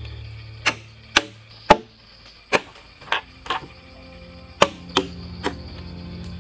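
A blade chopping into a wooden log: about nine sharp strikes, coming in runs of two or three blows roughly half a second apart.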